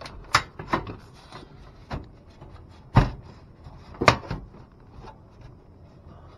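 Thin aluminum vented soffit panel being pushed and worked into its J-channel by hand. The sheet metal gives several sharp knocks and clunks at uneven intervals, the loudest about three seconds in, with some rubbing between.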